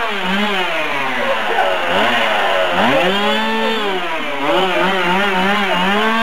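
Chainsaw engine being revved up and down, its pitch swooping: a long rev held about three seconds in, then quick repeated blips of the throttle near the end.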